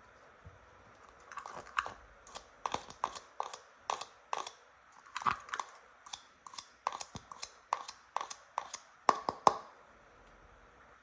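A quick, irregular run of sharp plastic clicks and taps, several a second, from toy hairdressing pieces being handled, starting about a second in and stopping shortly before the end.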